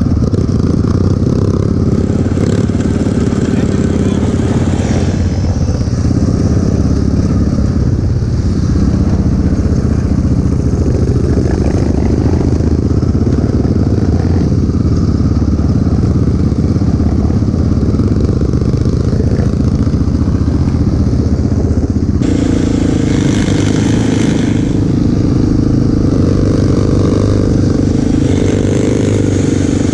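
Quad ATV engine running while riding, mixed with the engines of small dirt bikes just ahead. The engine note shifts as speed changes, most clearly about two-thirds of the way through.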